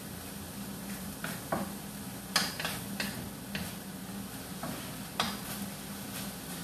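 Onion, chili and other shawarma fillings frying in oil in a pan: a steady sizzle, with irregular clicks and scrapes as a spatula stirs and taps against the pan.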